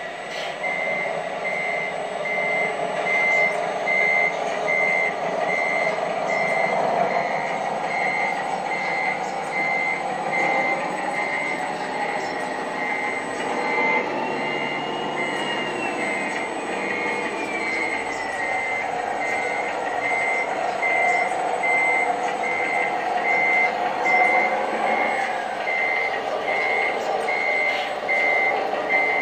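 RC tipper truck's reversing beeper sounding steadily, about one and a half beeps a second, over a steady truck engine sound.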